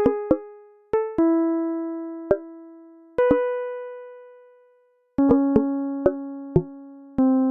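Instrumental background music: slow keyboard chords that are struck and left to fade, with light notes struck over them. One chord dies away to silence about five seconds in before the next chords begin.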